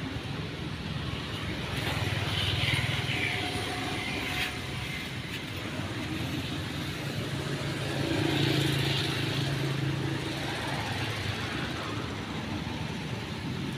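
Low engine drone of passing motor vehicles, swelling louder about two seconds in and again around eight seconds in.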